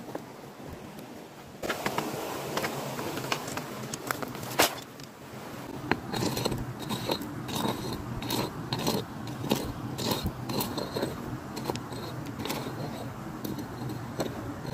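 Sticks clicking together as they are stacked, then, about two seconds in, an aluminium-foil-wrapped packet crinkling and scraping against sand and gravel as it is handled and pressed into the ground.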